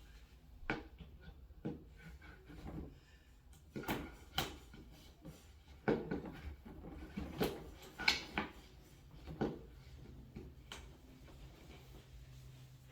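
Irregular knocks and clunks of a flat-pack cabinet panel being worked down into its slot, about a dozen light impacts with short scrapes between them.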